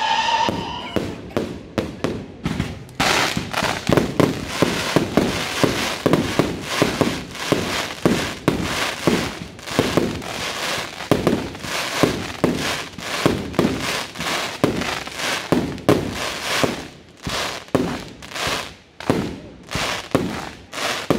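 Aerial fireworks display. A slightly falling whistle trails off in the first second. From about three seconds in comes a rapid, dense string of shell bursts and bangs, several a second, thinning out near the end.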